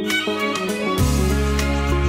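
Background music: pitched instrumental notes, with a deep bass note coming in about halfway through.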